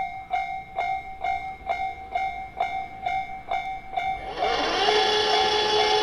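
Electronic level-crossing warning bell ringing about twice a second. About four seconds in, a louder steady whir with a rising hum joins it as the crossing barriers start to lower.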